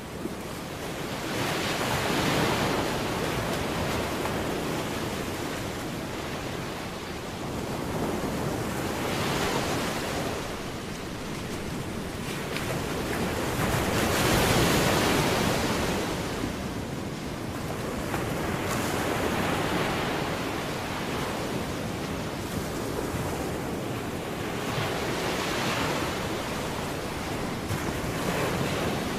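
Ocean surf: waves breaking and washing in, swelling and fading every five or six seconds.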